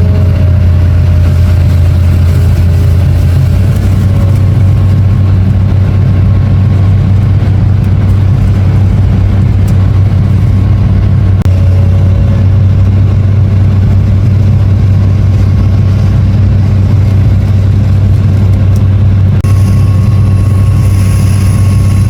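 Long-reach hydraulic excavator's diesel engine running steadily with a constant low drone. A faint thin whine joins near the end.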